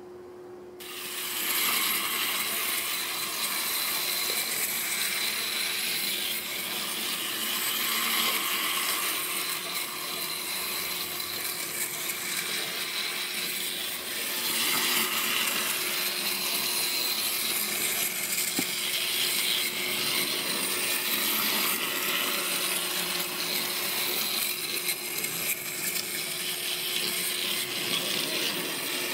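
Capsule Plarail EF58 toy locomotive running on plastic track: its wind-up spring motor's gears whir and its plastic wheels rattle on the rails. The sound starts suddenly about a second in and then runs steadily.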